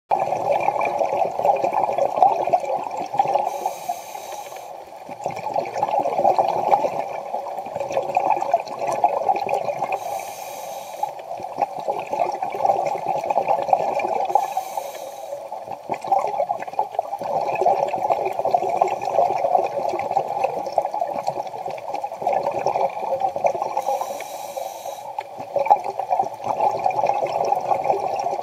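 Muffled underwater sound through a camera's waterproof housing, with a scuba diver's regulator hissing briefly on a breath four times and exhaled bubbles rumbling in between.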